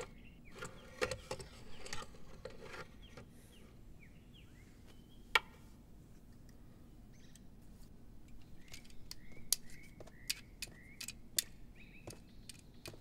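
Small metallic clicks and taps from a mantel clock's exposed movement being worked on with a hand tool, one sharp click about five seconds in the loudest. Faint short bird chirps repeat about twice a second in the second half.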